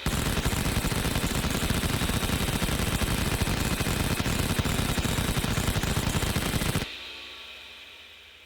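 Vulcan 20 mm Gatling-type rotary cannon firing one continuous burst of about seven seconds, its shots so rapid they merge into a buzz, which stops abruptly; the spinning barrels then whine down and fade.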